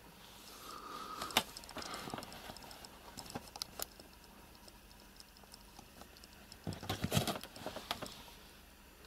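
Faint rustling and small clicks of fur and bed linen close by as a ginger cat grooms and shifts beside a kitten, with a louder flurry of rustling about seven seconds in.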